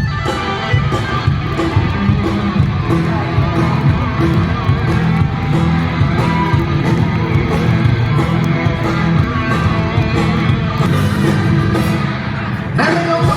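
Rock band music led by guitar, with a brief break and a change in the music about 13 seconds in.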